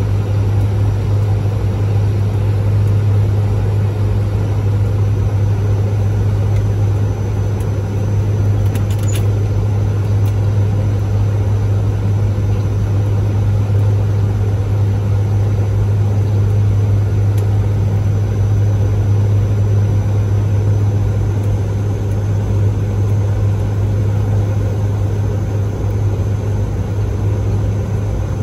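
Cockpit noise of a Bombardier Dash 8-Q400 turboprop on final approach: a loud, steady low hum from its engines and propellers over an even rush of airflow.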